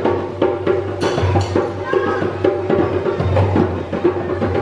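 Several djembe hand drums played together by hand in a quick, steady rhythm of sharp strokes.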